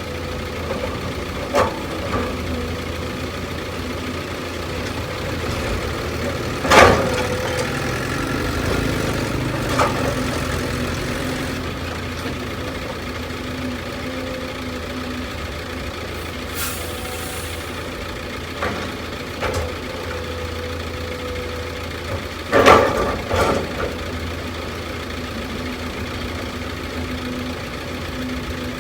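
Heavy machinery engine running steadily at idle, with a few sharp metallic knocks: a loud one about seven seconds in and a close pair near the end.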